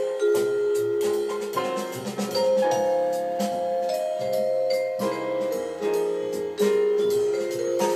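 Instrumental music: held pitched notes, like a vibraphone or keyboard, over a steady percussive beat.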